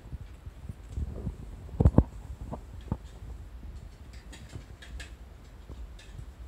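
Kitten clambering onto a person's lap: a pair of soft thumps about two seconds in, a few lighter knocks after, then faint scratchy ticks as it moves about on the trousers.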